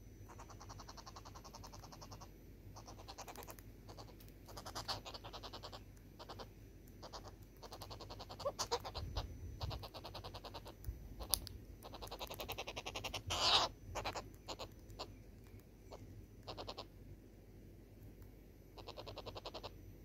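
Southern red-billed hornbills calling: runs of rapid clucking notes about a second or two long, repeated again and again, the loudest run a little past the middle. A few sharp clicks fall in between.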